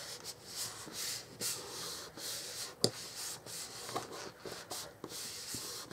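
Hands rubbing and pressing down on a freshly glued, folded cardstock card so the glue grabs: a soft, scratchy paper rubbing, with a sharp tap a little under three seconds in.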